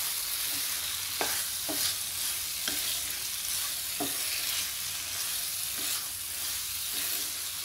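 Thick cauliflower and green pea curry sizzling in a nonstick pan while a wooden spatula stirs it, with occasional short knocks of the spatula against the pan.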